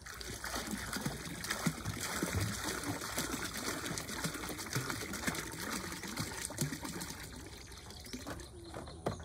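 Water trickling and splashing in many small close-set drips, busiest for the first seven seconds and then thinning out.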